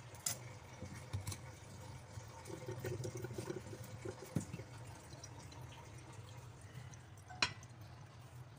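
Scattered light knocks and scrapes in a wet stainless steel sink as vegetable peelings and a peeled piece of ginger are handled and scooped up, with small drips of water. A sharper knock comes near the end, over a low steady hum.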